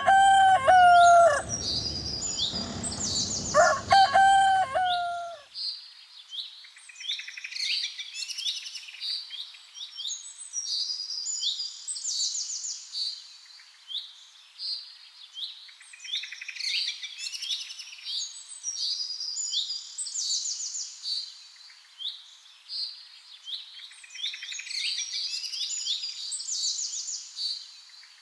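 A rooster crows twice in the first five seconds. After that, small birds chirp over and over in quick, high-pitched phrases.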